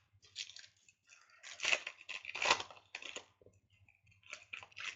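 Baseball trading cards being handled close to the microphone: a run of short rustles and scrapes, loudest around the middle.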